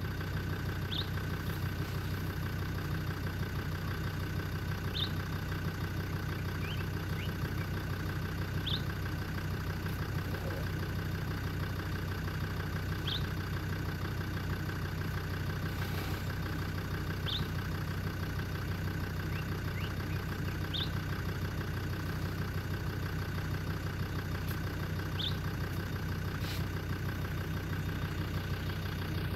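Safari vehicle's engine idling steadily, with a short high chirp about every four seconds.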